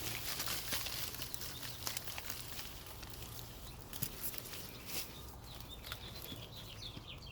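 Hands digging and rummaging through loose potting soil in a plastic soil bag: irregular rustling and crackling scrapes, busier in the first few seconds and lighter after.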